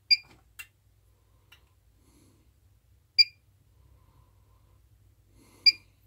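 Three short electronic key-press beeps from a bench test instrument's front panel, spaced about three seconds and then two and a half seconds apart, with a couple of faint button clicks between them.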